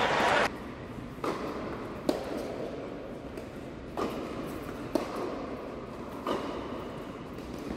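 Tennis rally on an indoor hard court: five sharp knocks of the ball off rackets and court, about a second apart, echoing in the hall. A louder sound cuts off about half a second in.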